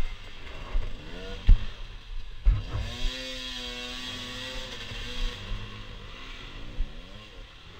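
Off-road motorcycle engine revving up and dropping back again and again, held high for a couple of seconds midway. There are two sharp knocks early on, from the bike over rough ground.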